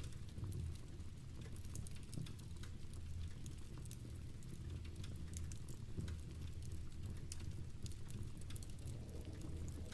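Steady rain pattering together with a crackling fireplace fire: many small, sharp crackles scattered over a low, steady rumble.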